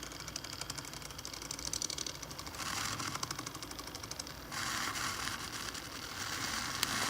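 Handheld USB milk frother whirring as its small motor spins the whisk in a cup of coffee, a fast even buzz whose sound shifts twice, about two and a half and four and a half seconds in.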